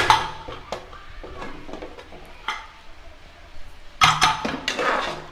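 Aluminium pressure cooker lid unlatched and lifted off with a sharp metallic clank, then a few light knocks. About four seconds in, a steel ladle clatters against the pot as the curry is stirred.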